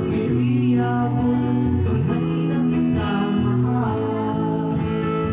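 Guitar music with sustained notes that change every second or so.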